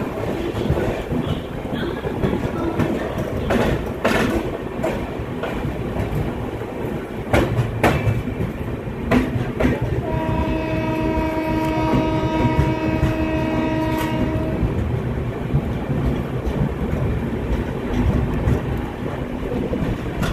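Saraighat Express passenger train running, with a steady rumble and a few sharp knocks from the coaches. About ten seconds in, a locomotive horn sounds one held, chord-like blast lasting about four and a half seconds.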